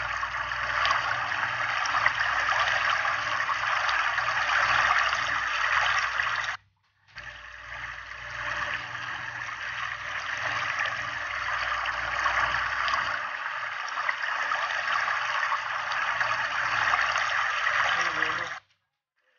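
Water from a garden hose pouring over a wet dog's coat and splashing into a basin of water: a steady rush that breaks off twice for about half a second.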